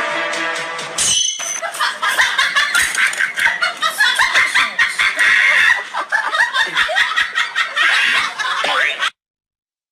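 Laughter in quick repeated bursts, after a snatch of music that stops about a second in. The laughter cuts off suddenly about nine seconds in.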